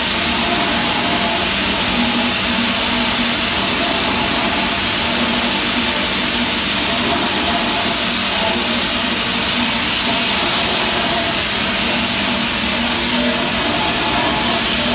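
Steady machinery noise in a forging shop: a constant loud hiss with a low hum underneath, unbroken and with no press strokes or impacts.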